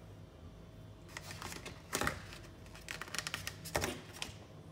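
Plastic ice cream tub and its lid being handled and pried open: scattered light plastic clicks and knocks, a handful over a few seconds.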